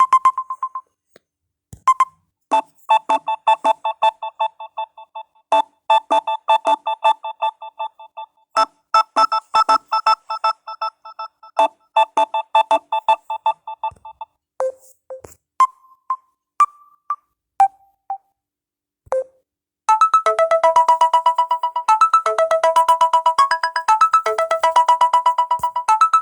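Samsung Galaxy A01 ringtones playing one after another: a quick melody of short repeated notes, then a few widely spaced single notes, then a busier synth melody starting about twenty seconds in.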